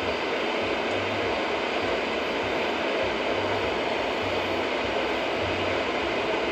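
Steady road noise heard inside a moving car: tyres hissing on a wet expressway over a low, uneven rumble of engine and road.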